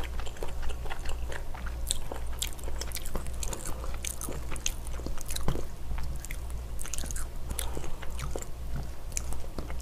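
Close-miked mukbang eating sounds: a person chewing a spicy seafood stir-fry, with many irregular wet mouth clicks and crackles and a metal spoon clinking against a metal pan.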